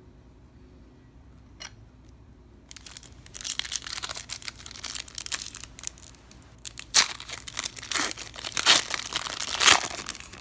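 A baseball card pack wrapper being torn open and crinkled by hand, starting about three seconds in. Louder rips come near the end.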